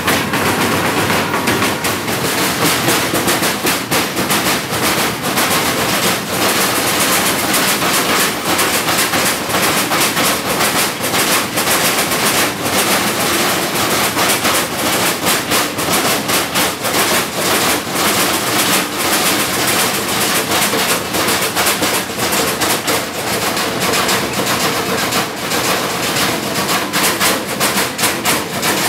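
A group of Perchten ringing large sheet-metal bells hung on chains, shaken together in an unbroken, dense clanging with a rapid clatter of strikes.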